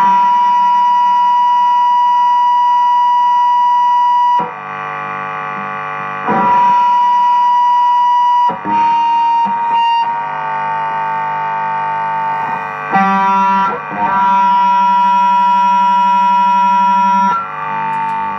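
Blackstar HT-Metal distortion pedal on its high-gain Channel 2, feeding back through the guitar rig: a loud, steady squeal at one high pitch over a low hum, cutting out and changing pitch several times. The owner says the squeal comes from the guitar strings not being held or muted, and that every unit of this pedal howls and buzzes like this.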